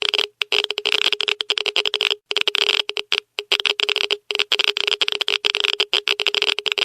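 Geiger counter clicking very rapidly in dense, uneven bursts with brief gaps, the rate of a very high radiation reading.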